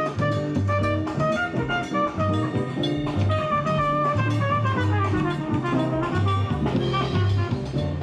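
Jazz music with brass instruments and a drum kit, playing steadily over a moving bass line.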